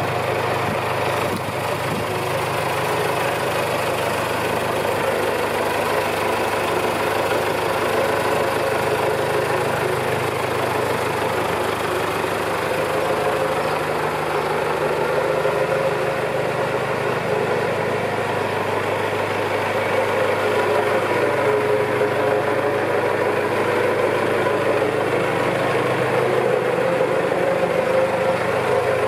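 1998 John Deere 6110 tractor's four-cylinder diesel engine idling steadily.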